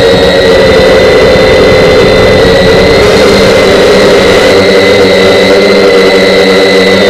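Radio-controlled model airplane's motor and propeller running steadily at cruise, picked up close by a camera mounted on the plane, with a thin high whine over the drone of the propeller.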